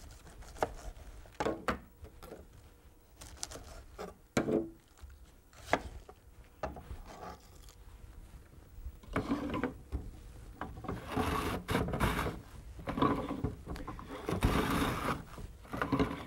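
A kitchen knife cutting cabbage on a cutting board, a few scattered cuts. From about nine seconds in, a wooden sliding-box mandolin shredding cabbage: the box is pushed back and forth over the blade, rasping in strokes about a second long, louder than the knife cuts.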